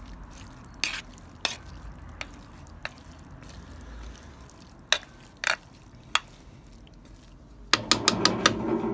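A spoon stirring thick chili con carne in a steaming cast-iron Dutch oven, with a low sizzle from the simmering pot and separate knocks and scrapes of the spoon against the iron. About eight seconds in comes a quick run of louder knocks and scraping.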